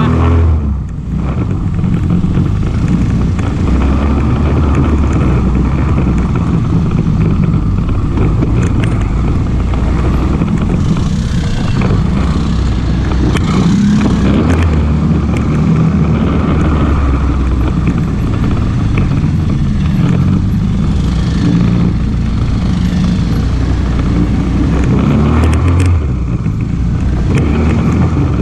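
ATV engine running while the quad is ridden, its pitch rising and falling as the throttle changes.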